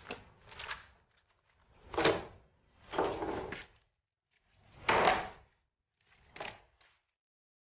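A series of about six short knocks and clatters, irregularly spaced, with the loudest about two and five seconds in.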